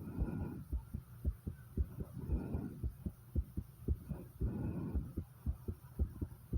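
A fast human heartbeat, raised by exertion after 50 squats: a quick, regular run of low thuds, with heavy breathing in and out about every two seconds.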